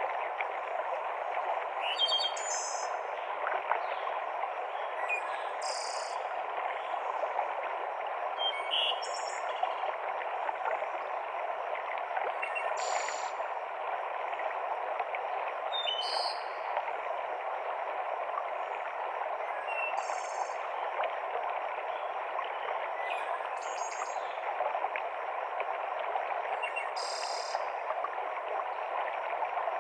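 Steady rush of a mountain stream cascading over rocks. Above it, a bird gives short high calls, a brief phrase about every three to four seconds.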